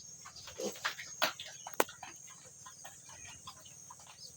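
Pigs in a pen making short, scattered squeaks and grunts, with one sharp click about two seconds in and a steady high-pitched background drone.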